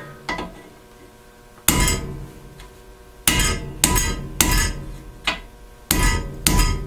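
Hammer striking a pin punch to drive a roll pin out of a snowblower impeller shaft: about seven sharp metal-on-metal blows at uneven intervals, each followed by a short metallic ring.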